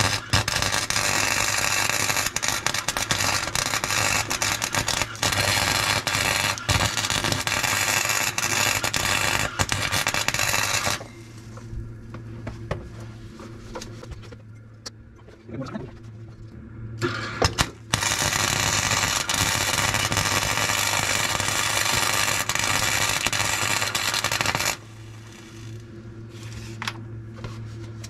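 Electric arc welder crackling and hissing as it welds overhead, tacking a sheared bump-stop bolt fitting back together. There is one long run of about eleven seconds, a short burst, then another run of about seven seconds, with a low hum in the pauses.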